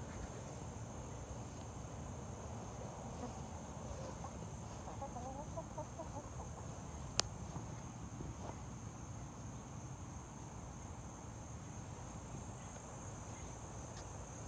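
Chickens clucking softly now and then over a steady, high-pitched insect drone, with one sharp click about seven seconds in.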